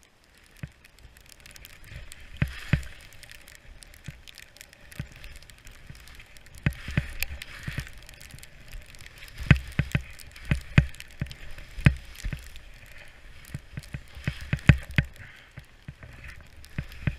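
Skis hissing and swishing through deep powder snow on a fast descent, with many irregular sharp knocks and thumps from the moving camera and poles, densest in the middle and near the end, over a low rumble.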